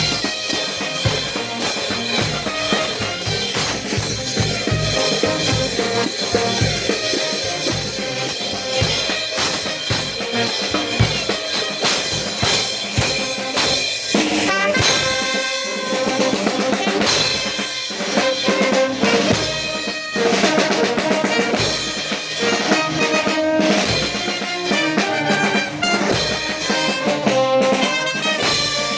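Brass band with drums playing a pasacalle: a steady drumbeat under the brass.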